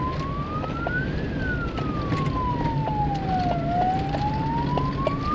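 A siren wailing: a single tone that climbs to its peak about a second in, falls slowly for over two seconds, then climbs again near the end. Under it, a vehicle engine runs steadily, with short rattles and knocks from driving on a rough dirt track.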